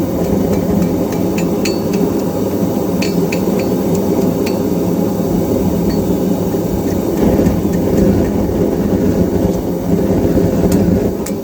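A blacksmith's hammer striking metal on an anvil in irregular light blows, each with a short high ring, over a loud steady roar.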